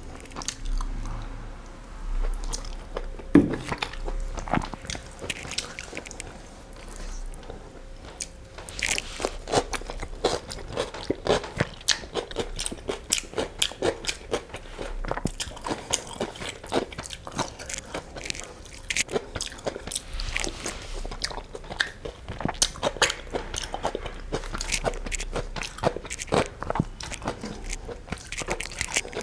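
A person chewing and eating biryani and chicken curry by hand, with many quick wet mouth clicks and smacks and the squish of fingers mixing rice; one louder click about three and a half seconds in.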